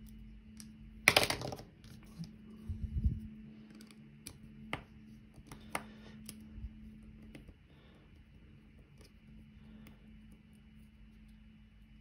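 Small metal clicks and scrapes of a flathead screwdriver working on a Medeco M3 lock cylinder as it is taken apart. A louder, ringing clatter comes about a second in, a dull knock near three seconds, then scattered light clicks that stop after about seven seconds.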